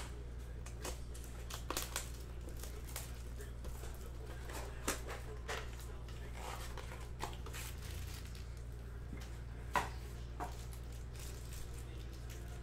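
Plastic shrink-wrap crinkling and a cardboard trading-card blaster box being torn open, with the foil packs inside handled: scattered crinkles and a few sharper snaps over a steady low hum.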